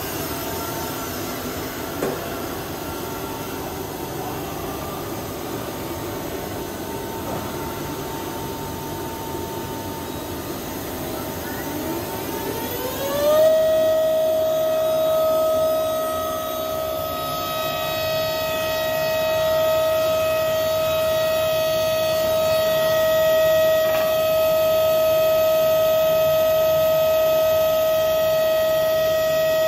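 Studer S40 universal cylindrical grinder running: about halfway through, a high-speed internal grinding spindle spins up with a rising whine, then holds a steady high whine over the machine's running noise. A single click near the start and another near the end.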